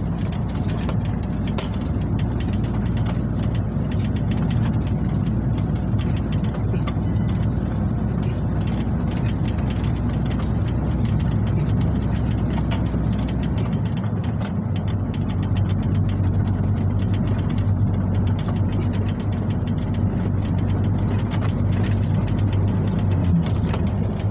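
MAN diesel truck engine running steadily under way, heard from inside the cab as a loud low drone. About halfway through, the engine note shifts and settles into a slightly higher hum.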